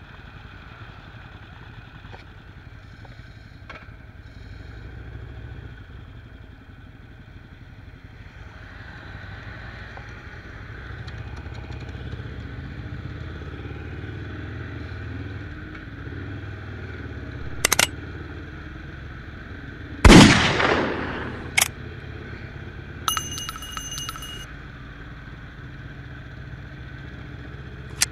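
Motorcycle engine running steadily while riding, with wind on the microphone; it grows louder about eight seconds in. A few sharp clicks, a loud sudden crack about twenty seconds in and a short electronic beep a few seconds later stand out over it.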